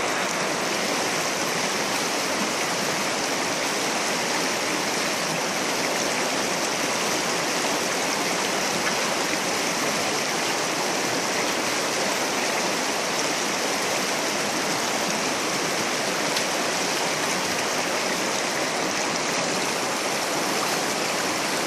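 Shallow river rushing steadily over rocks in a slot canyon, a continuous even water noise.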